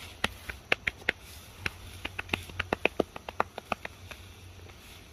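Wood cracking as a long stick is levered against a tree trunk to break it: a quick, irregular run of sharp little cracks and snaps that stops a little under four seconds in.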